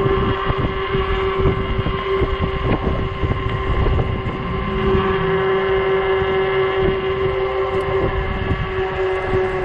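Ecotric 48-volt fat-tire e-bike's hub motor whining at a steady pitch while riding, with gusty wind rumbling on the microphone.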